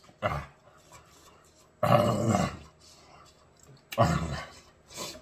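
A man's pained groans and cries without words, three outbursts with the loudest about two seconds in, a reaction to the burn of very spicy hot sauce.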